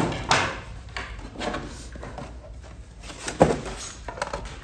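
A few short knocks and clatters of a plastic wall-clock case being handled and turned over, the loudest about three and a half seconds in.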